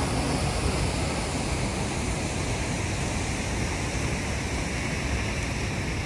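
Steady rush of a tall waterfall plunging into a deep pool below a rock cliff, an even roar of falling water with no breaks.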